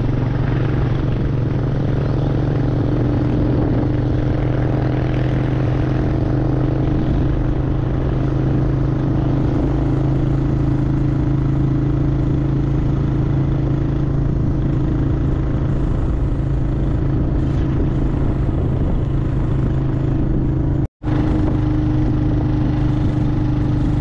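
Motorcycle engine running at a steady speed on the move, a constant low hum under a dense rushing noise. The sound drops out for a split second about 21 seconds in.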